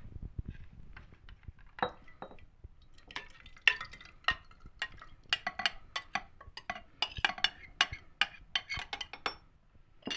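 A spoon clinking and scraping against a jar as a thick honey, lemon, garlic and ginger mixture is spooned into it: a quick, irregular run of small clinks, starting about two seconds in and stopping shortly before the end.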